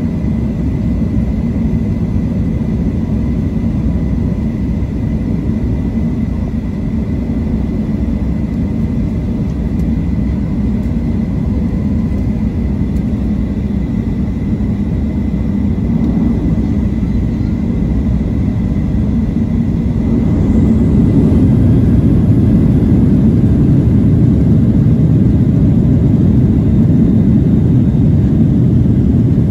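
Boeing 737-700's CFM56-7B jet engines heard from inside the cabin during taxi, a steady low rumble with a faint steady whine. About twenty seconds in the engines spool up and the rumble grows louder.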